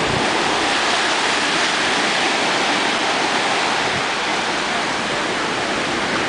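Ocean surf breaking and washing through the shallows: a steady rush of water.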